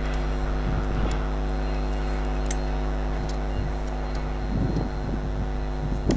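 VL80S electric locomotive humming steadily, with a few sharp clicks and some louder, uneven low rumbling near the end.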